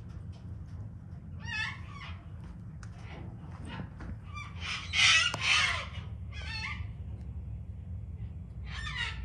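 Sulphur-crested cockatoos giving a few short, harsh screeches, the loudest a double screech about five seconds in, over a low steady rumble.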